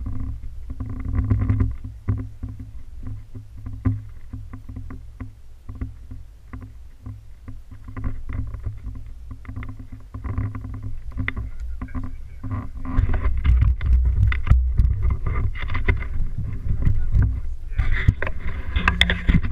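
Wind buffeting an action camera's microphone, a low rumble that grows stronger about two-thirds of the way through, with scattered clicks and rustles from footsteps and handling.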